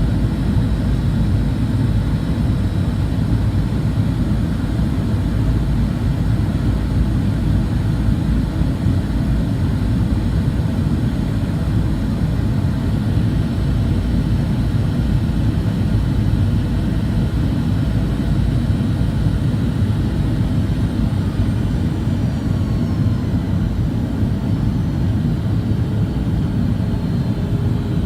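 Steady low rumble of a jet airliner's engines and airflow heard from inside the passenger cabin, with a faint falling whine in the last part.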